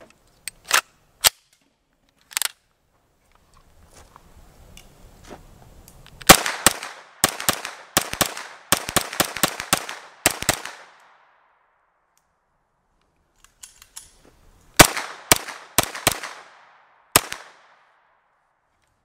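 CZ Scorpion EVO 3 9mm pistol fired in rapid semi-automatic strings: about a dozen shots in roughly four seconds, a pause, then about half a dozen more. A few sharp clicks come in the first couple of seconds.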